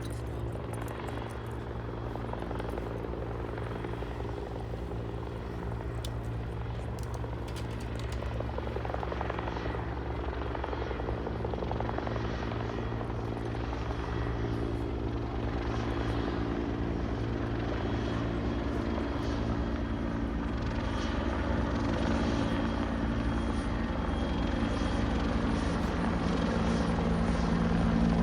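Helicopter approaching, its steady rotor and engine sound growing gradually louder.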